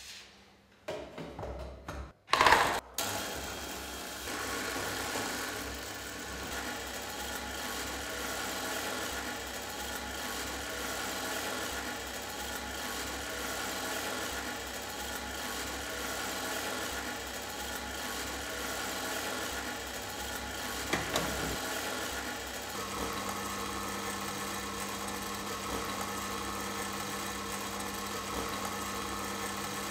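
Electric arc lamp of a Duboscq projection lantern: a loud short burst about two and a half seconds in as the arc is struck, then the lit arc's steady hum and hiss, with a lower hum joining near the end.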